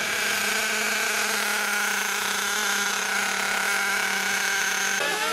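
Radio-controlled car's motor running at a steady high pitch, a held drone with many overtones that breaks off near the end.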